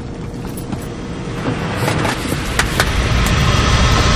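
Vehicle engine and road noise, a low rumble with scattered clicks that grows steadily louder.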